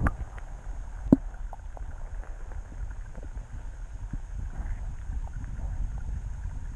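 Underwater sound picked up through an action camera's waterproof housing: a steady, muffled low rumble of moving water, with a sharp knock against the housing at the start and a louder one about a second in, then a few faint ticks.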